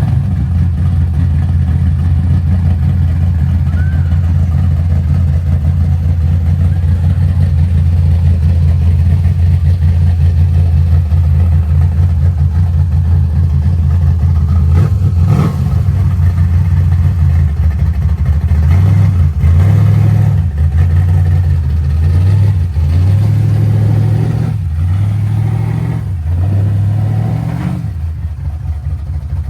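G-body Chevrolet Malibu's engine and exhaust running with a steady low drone; past the middle the pitch steps up and down several times, as the engine revs.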